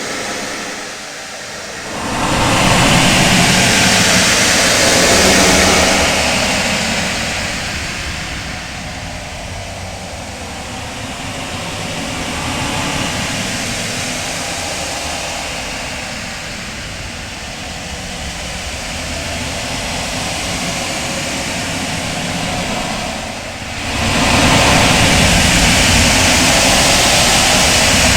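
Loud synthetic outer-space ambience: a dense, rumbling wash of noise that swells and ebbs slowly, jumping up sharply about two seconds in and again near the end.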